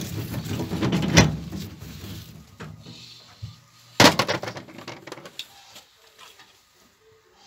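Clatter of potatoes rolling and knocking on a wire-mesh sorting screen for about two seconds, then a single sharp knock about four seconds in.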